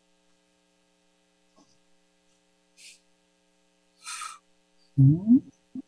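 Video-call audio in a lull: faint steady hum, two short breathy hisses, then near the end a brief voiced "hm" that rises in pitch, the loudest sound.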